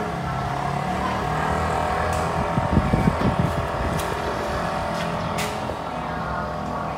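A motor vehicle engine running steadily, with a louder low rumble swelling briefly about three seconds in.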